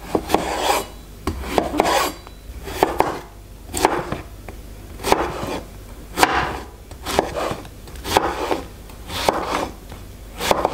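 Chef's knife slicing through a courgette on a wooden cutting board: a crisp crunch as the blade goes through, ending in a knock on the board, about once a second.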